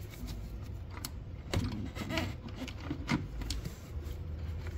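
A part being worked by hand onto its locating pegs: several sharp, irregular clicks and knocks as it is wiggled and pressed into place.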